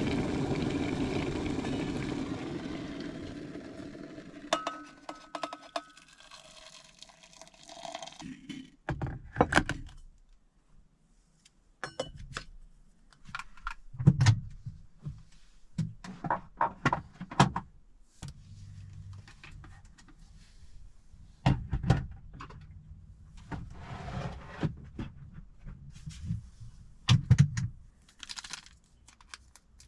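A vehicle engine fading away over the first several seconds. Then scattered clicks, clinks and knocks of objects being handled, with short quiet gaps between them.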